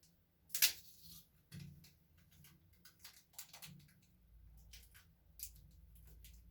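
Scattered crackles and clicks of hands working adhesive tape and a plastic bag, with one louder crackle about half a second in.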